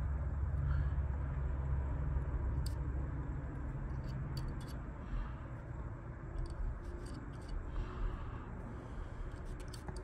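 Scattered light clicks and taps of a screwdriver tip against the metal contacts and plastic housing of an opened power seat switch as dielectric grease is dabbed on, over a steady low hum.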